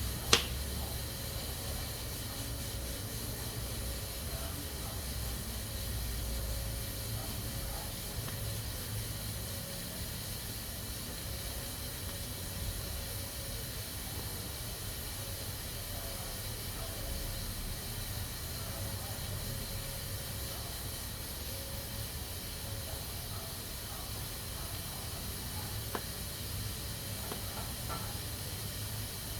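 Pressure cooker hissing steadily as steam escapes from its valve, with one sharp click about half a second in.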